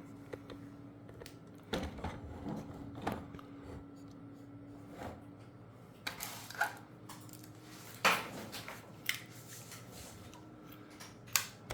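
Scattered clicks, knocks and rustles of hands handling equipment, at irregular intervals with the loudest knock about eight seconds in, over a faint steady hum.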